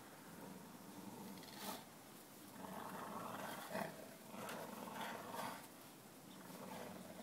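Dogs growling in play while pulling on a toy in a tug of war, the growls coming in a few rough surges through the middle, with a couple of short clicks.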